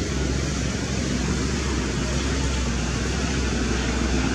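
Steady outdoor background noise: a low rumble with an even hiss over it, with no distinct calls or knocks.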